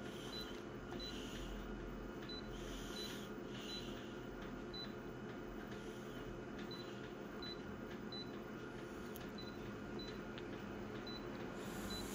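Photocopier touchscreen giving short, high beeps as menu buttons are tapped, a string of them at irregular intervals, over the machine's steady low hum.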